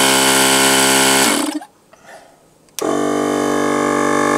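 Two portable tire-inflator air compressors run one after the other for a noise comparison. The first, the older cheaper unit, runs with a harsh, hissy whine, winds down in pitch and stops about a second and a half in; after a short pause the VIAIR 450P-RV starts about three seconds in and runs steadily with a smoother, less hissy hum.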